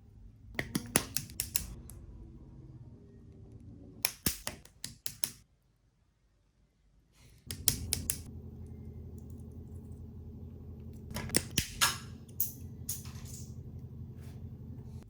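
Sharp plastic clicks in quick clusters as the parts of a plastic Gundam model kit are cut and fitted by hand, over a faint low hum. The clicks come in four bursts, with a brief near-silent gap in the middle.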